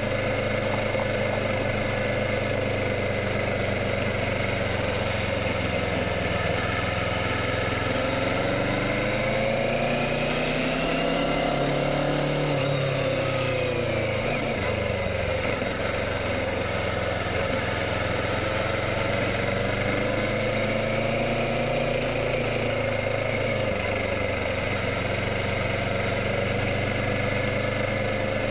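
Kawasaki Ninja 650's parallel-twin engine running as the bike rides, its pitch climbing about eight seconds in and falling back a few seconds later as engine speed rises and eases off, otherwise steady.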